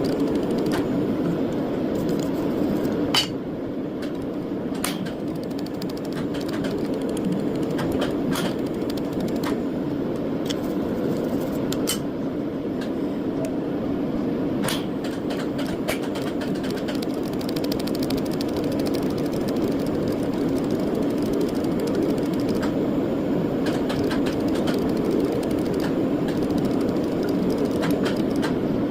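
A steady mechanical hum with scattered sharp clicks, most of them in the first half.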